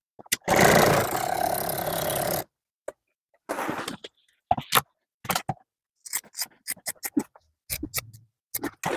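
Vinyl upholstery material rustling and sliding over the sewing table for about two seconds, then a run of short, crisp scissor snips through the second half as the vinyl edge is trimmed by half an inch.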